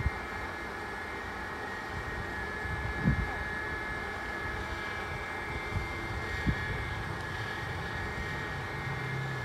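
Machine running steadily: a low drone with a thin, steady high whine on top. A few soft thumps come about three and six and a half seconds in.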